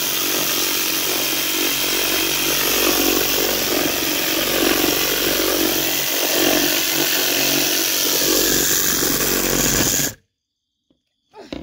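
Cordless reciprocating saw running and cutting through a wooden board, a steady, fast chatter of blade strokes in the wood. It stops abruptly about ten seconds in.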